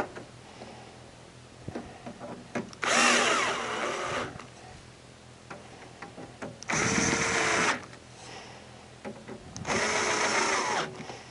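Cordless drill-driver running in three short bursts, each a second or so with the first the longest, driving three small stainless screws into the side of a dehumidifier's sheet-metal cover.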